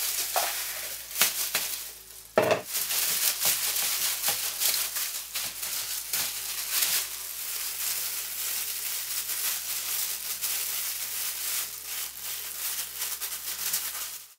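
Gloved hands handling raw marinated pork on a perforated metal tray: continuous crinkling and rustling of thin plastic gloves and foil, with soft squishing of the meat. One sharper knock comes about two and a half seconds in.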